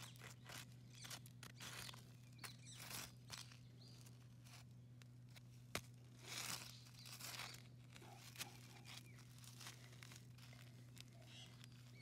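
Near silence: faint, scattered rustling and crackling with one sharp click about six seconds in, over a low steady hum.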